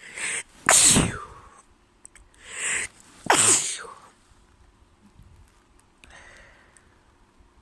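A person sneezing twice, about two and a half seconds apart, each sneeze preceded by a quick in-breath; a sneezing fit from a head cold with a stuffy nose.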